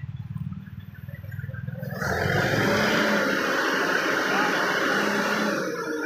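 Heavy diesel engine throbbing at a low, even idle, then revved hard about two seconds in and running loud and harsh under load as the backhoe loader works a stuck truck out of a ditch. Onlookers' voices sound over it.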